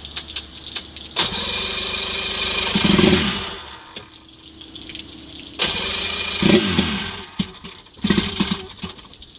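Electric starter cranking a 1975 Mercury 850, an 85 hp two-stroke outboard, in three bursts: about two seconds, then a second and a half, then under a second. The engine catches briefly during the cranking but does not keep running.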